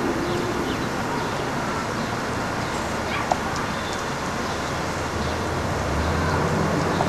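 Steady outdoor background noise of traffic, with a dog barking faintly in the distance. A low engine hum swells near the end.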